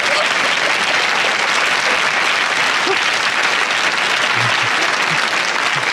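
Studio audience applauding steadily, a dense even clapping that holds through the whole stretch, with a few faint cheers or voices in it.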